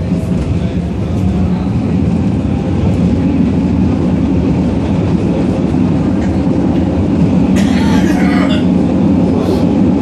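Moderus Gamma tram running along its track, heard from inside the passenger cabin: a steady low noise of wheels on rails and running gear that grows a little louder over the first couple of seconds, with a short burst of clatter about eight seconds in.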